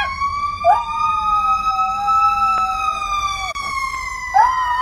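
Dogs howling: one long wail that rises, holds for several seconds and slowly falls, joined by a second, lower wavering howl about a second in and again near the end.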